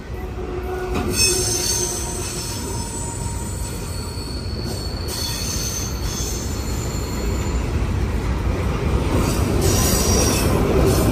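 Freight train of covered hopper cars rolling past close by: a steady rumble of wheels on rail, growing louder toward the end, with high-pitched wheel squeal coming in about a second in, again around five seconds and near the end.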